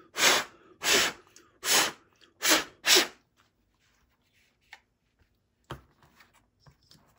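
A person blowing hard on a small wet RC receiver in five quick puffs of breath, clearing salt water from its exposed pins. A few faint clicks of wire connectors being handled follow.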